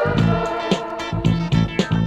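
Late-1970s Korean pop band record playing from a vinyl LP: a band with drums keeping a steady beat under pitched instruments.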